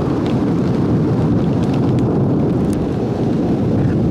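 A long, steady roll of thunder, a deep continuous rumble, in a heavy thunderstorm downpour with a few raindrop ticks.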